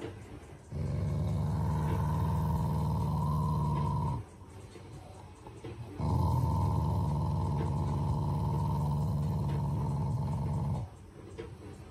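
Black Shiba Inu growling while being petted, in two long, low, steady growls with a pause of about two seconds between them; the second stops about a second before the end. The owner says this is an affectionate play growl, not anger.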